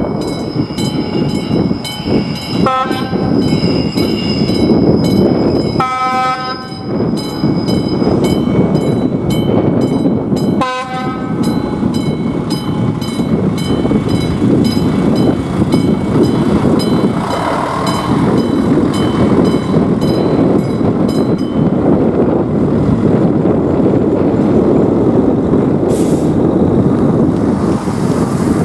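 Level-crossing warning bell ringing in rapid, even strokes while an approaching train sounds its horn three times: short, long, short. The train then runs over the crossing with a loud, even rumble, and the bell stops about three quarters of the way through.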